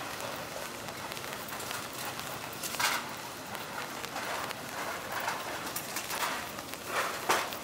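Steady rain falling on a city street, an even hiss, with several short louder sounds breaking through, the first about three seconds in and a cluster near the end.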